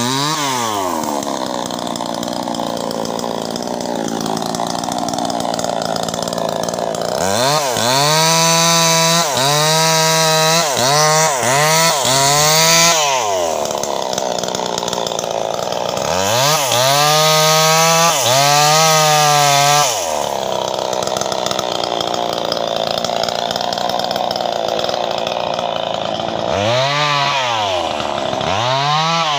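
Two-stroke chainsaw switching between idle and full throttle. It revs up in two long bursts of several seconds, with its pitch dipping as it works through the wood, and drops back to idle between them. Near the end come a few short quick revs.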